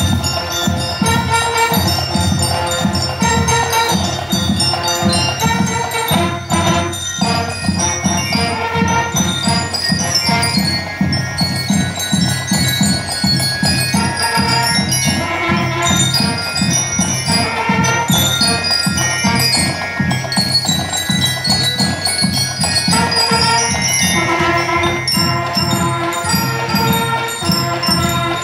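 A marching band playing: bell lyres ringing out the melody with trumpets, over a steady, even beat from the drum section.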